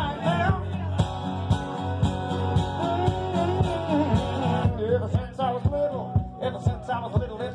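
Live music of an acoustic guitar strummed in a steady rhythm under an alto saxophone melody. The saxophone holds one long note through the first half, then plays shorter, bending phrases.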